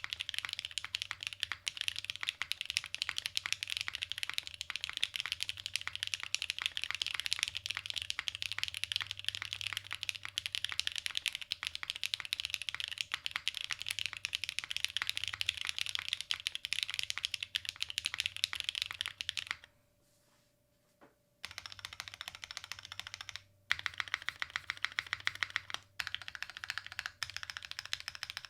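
Continuous fast typing on a gasket-mount Matrix 8XV 3.0 mechanical keyboard with lubed Novelkeys Cream Dreams switches on a stock aluminium plate, no dampening, and GMK keycaps: a rapid stream of keystrokes. It stops for under two seconds about two-thirds of the way through, then resumes in shorter runs.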